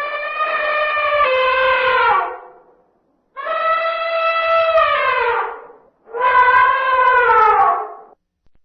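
Bull elephant trumpeting: three long calls, each about two seconds, holding a steady pitch and then sliding down at the end, with silent gaps between them.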